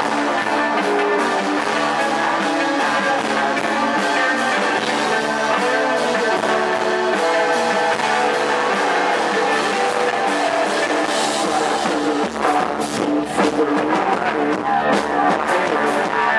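Post-punk rock band playing live, a dense mix of guitars and held notes over drums. From about twelve seconds in, sharper, harder hits come through and the loudness grows more jagged.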